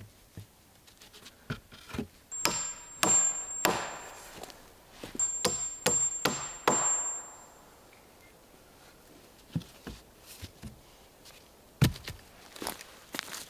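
Hatchet striking wood in two runs of sharp blows, three and then five, with a faint high ring under them. A few lighter knocks follow, and one sharp knock near the end.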